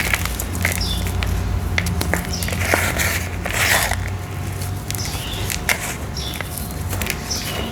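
Dried red brick-dirt shapes crumbling and crunching, in repeated bursts with sharp crackles and clicks, over a steady low hum.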